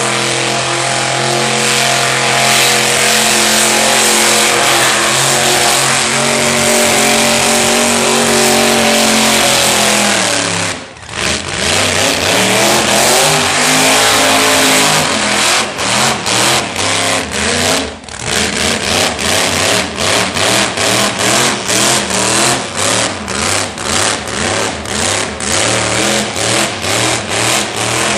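Burnout car's engine held at high revs as its rear tyres spin and smoke, with a thick hiss over the engine note. About eleven seconds in the revs drop briefly and climb again. For the last dozen seconds the revs pulse up and down in quick even bursts, nearly two a second.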